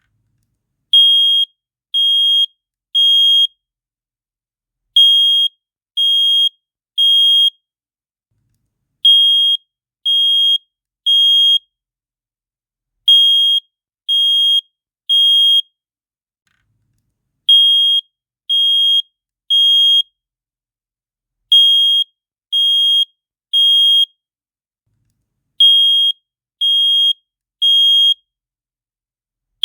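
Wizmart home fire alarm sounding its high electronic beep in groups of three, with a pause of about two seconds between groups. This is the temporal-three pattern that signals an alarm to evacuate.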